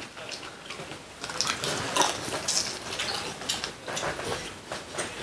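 Eating at the table: chewing and irregular light clicks of utensils against dishes.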